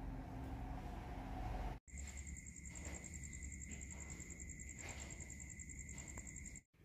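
Night insects trilling steadily: a high, fast-pulsing trill with a second, lower steady trill beneath it, both faint. It starts suddenly about two seconds in, after faint outdoor background noise, and cuts off just before the end.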